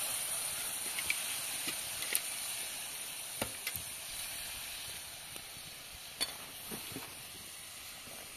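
Chopped tomatoes sizzling in hot oil in an aluminium pan over a wood fire, with a ladle stirring them. The sizzle slowly fades, and a few sharp clicks and pops stand out from it.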